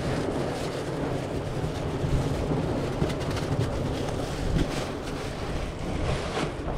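Steady wind rumbling on the microphone over the wash of the sea, with a few faint crinkles as plastic bags are handled.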